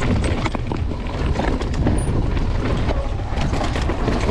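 Downhill mountain bike riding fast down a trail: a steady rumble of tyres over dirt and rocks, with many small rattling knocks from the bike.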